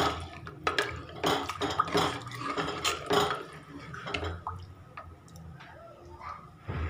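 Ladle stirring thin, watery mutton paya gravy in a pressure cooker: liquid sloshing, with the ladle knocking against the pot again and again, then quieter after about four seconds.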